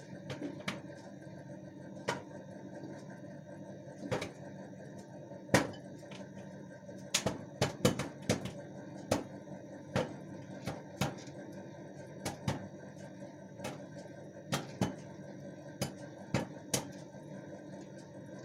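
Microwave popcorn kernels popping: irregular sharp pops, a few at first and then a quick cluster about seven to eight seconds in, over the steady hum of the running microwave oven.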